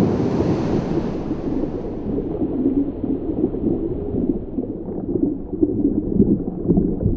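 Water and air bubbles rushing and churning, heard underwater just after a scuba diver's entry into the sea. The hiss fades over the first few seconds, leaving a steady low, muffled churning.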